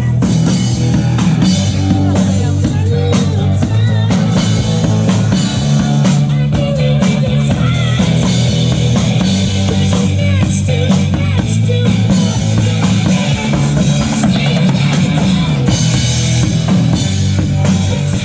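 Rock music with a drum kit played hard and steady, hits and cymbals over a backing of guitar and bass.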